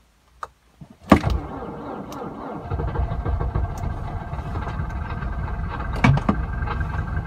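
Car engine cold-started in deep frost: a faint click, then the starter engages with a sharp jolt and cranks for about a second and a half before the engine catches and settles into a steady fast idle. Two light clicks come near the end.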